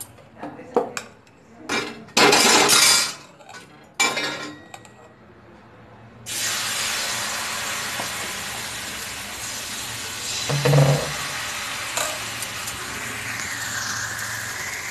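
Clinks and scrapes of utensils, then, about six seconds in, rice-and-coconut pancake batter hitting a hot oiled iron kadai and sizzling steadily, with a single thump partway through.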